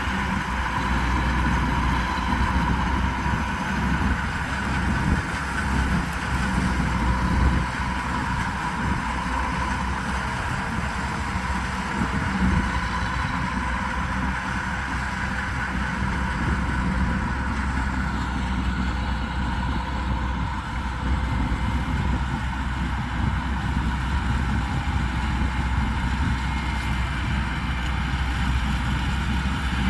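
Kubota combine harvester's diesel engine running steadily at an even speed.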